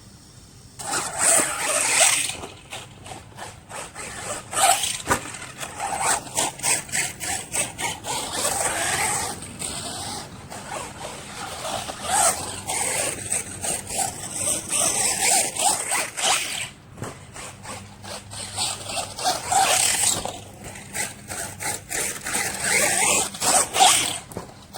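Electric RC monster truck on a 3S battery driving hard, its motor whining up and down in pitch with repeated short bursts of throttle and tyres scrabbling on dirt.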